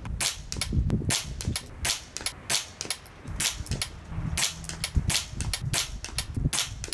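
Gunshots: many sharp cracks in quick, irregular succession, about three or four a second, from rifle fire on a shooting range.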